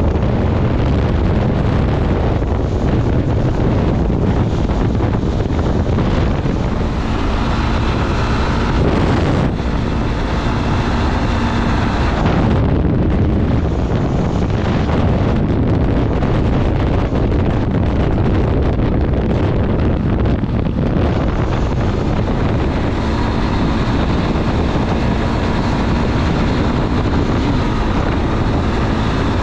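Motorcycle riding at road speed: heavy wind buffeting the microphone over the steady drone of a Honda 300 single-cylinder dual-sport engine.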